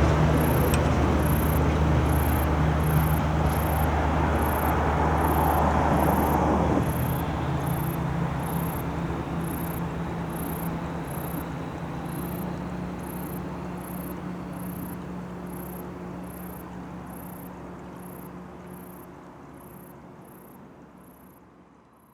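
A train running over a Japanese level crossing, its rumble loud for the first few seconds and then easing off. The crossing alarm rings a steady repeating ding throughout, and the whole sound fades away toward the end.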